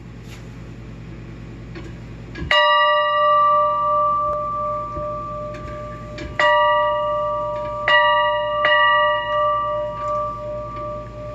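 Cast-iron floor toy train (Welker and Crosby, 1885) rolling over a hard floor, its iron wheels rumbling steadily. Its bell rings out four times as it goes: once about two and a half seconds in, then three more strikes in the second half. Each strike rings on.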